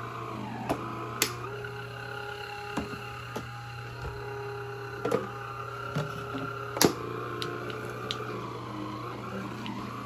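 Shark cordless floor sweeper running: its small brush-roll motor gives a steady hum with a light whine that comes and goes, and several sharp clicks sound, the loudest about seven seconds in.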